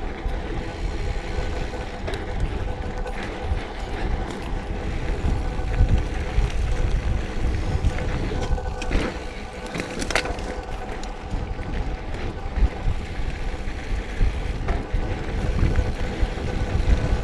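Mountain bike riding down a dirt trail, heard through an action camera's microphone: wind buffeting, tyre rumble and frame rattle, with a few sharp knocks over bumps near the middle.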